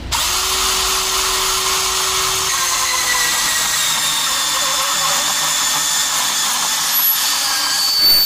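Makita 18V cordless band saw starting up and running steadily as its blade cuts through a square steel tube.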